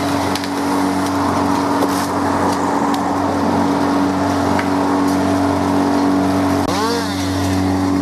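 Steady drone of tree-clearing machinery, a wood chipper's engine and chainsaws running together. Near the end one engine is briefly revved up and back down.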